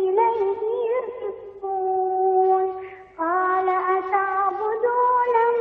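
A child's high voice singing unaccompanied in long held notes with ornamental bends, pausing briefly about three seconds in.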